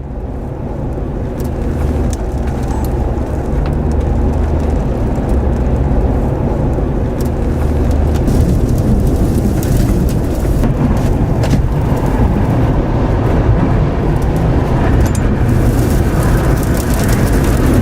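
Tornado wind sound effect: a loud, steady roar of wind, heaviest in the low range, swelling up over the first two seconds. Scattered sharp ticks run through it, and it turns hissier for a stretch near the end.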